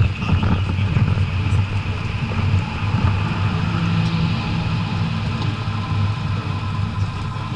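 BMW 535d's twin-turbo straight-six diesel running steadily under way, its note holding at a fairly even pitch.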